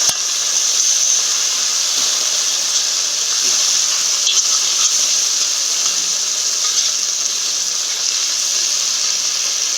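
A masala of onion, ginger-garlic paste and freshly added chopped tomatoes frying in oil and ghee in a pan: a loud, steady sizzle.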